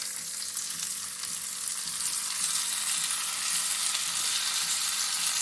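Washed Gobindobhog rice sizzling in hot ghee with whole spices in the pan, a steady hissing fry.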